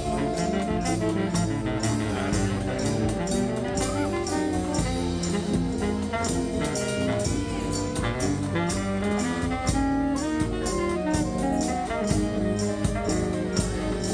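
Marching band playing live: brass horns carry the melody in full harmony over a steady drum beat.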